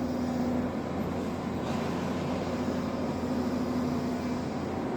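Steady mechanical hum with a held low drone, even throughout and with no distinct knocks or bangs.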